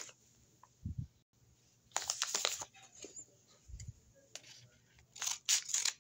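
Paper blind bags crinkling as they are handled, in two short bursts about two seconds in and near the end, with a couple of soft low thuds between.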